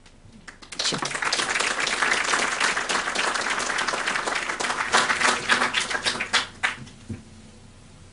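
Audience applauding, starting about a second in and dying away with a few last claps about seven seconds in.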